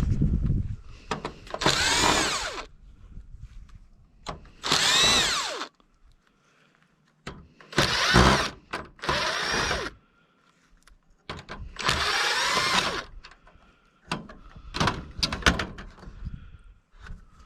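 Cordless power drill running in about five short bursts of roughly a second each, its whine rising in pitch as it spins up and falling as it stops. Scattered clicks and knocks near the end.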